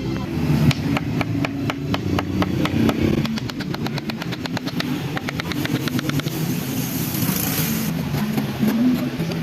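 A motor running steadily, with a fast run of even clicks that quickens and then blends into a steady hiss.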